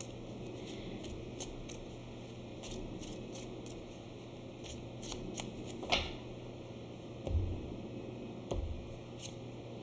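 A deck of tarot cards being shuffled by hand, a soft continuous rustle and clicking of card edges, with a couple of low soft knocks near the end as the deck is set on a wooden table.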